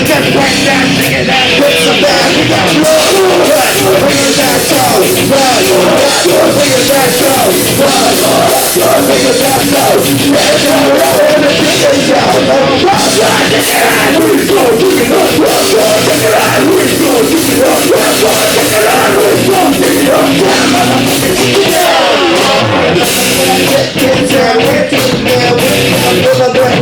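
Live band playing loud, fast rock music with yelled vocals.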